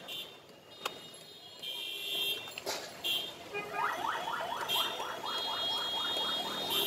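A heavy fish-cutting knife knocks twice on a wooden chopping block. Then, about four seconds in, a fast repeating rising chirp sounds about five times a second for a few seconds.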